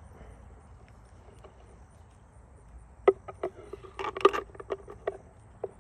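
Faint outdoor hiss, then from about three seconds in a run of sharp clicks and knocks as a Stoeger M3000 shotgun and its buttstock are handled and fitted back together.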